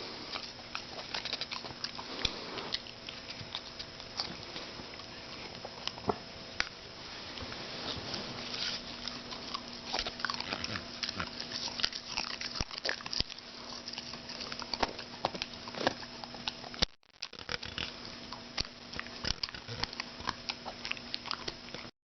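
Small dog chewing and mouthing, an irregular run of soft clicks and smacks, over a steady low hum. There is a brief break about two-thirds of the way through, and the sound cuts off just before the end.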